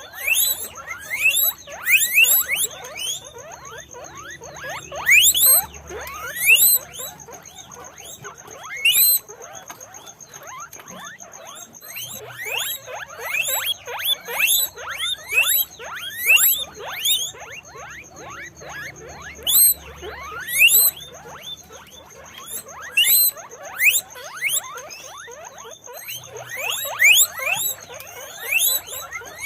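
Guinea pigs squeaking over and over: short, high, rising squeaks that come in quick clusters and often overlap.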